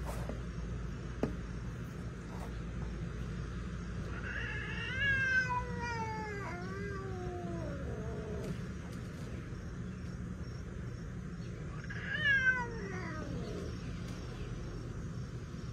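A cat yowling twice at another cat, each drawn-out call sliding down in pitch: a longer one about four seconds in, and a shorter one near twelve seconds. It is the hostile warning of a cat facing an intruding cat.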